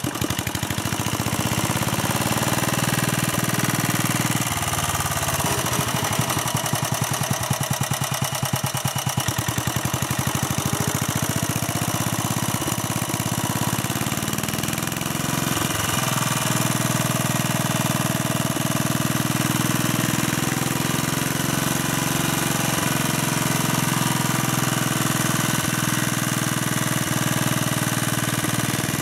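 1957 Staub PP3B walking tractor's engine running steadily while driving its rotovator through garden soil, with a rapid even firing beat; the note shifts a little between about 4 and 10 seconds in.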